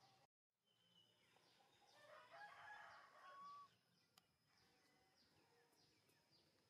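Faint outdoor ambience with small birds chirping over and over. About two seconds in, a faint rooster crow lasts a second and a half and ends on a held note. The sound cuts out completely for a moment just after the start.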